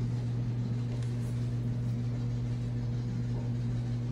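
A steady low hum with fainter higher overtones, unchanging throughout.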